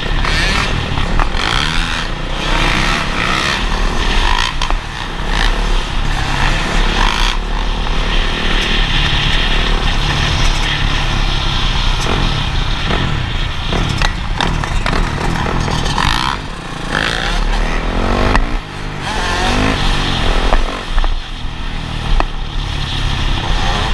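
Motocross dirt bike engines running and revving at riding speed, their pitch rising and falling repeatedly as the throttles are worked.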